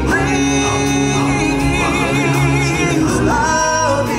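Live stage-show music: voices singing with vibrato, some notes held long, over a full instrumental accompaniment.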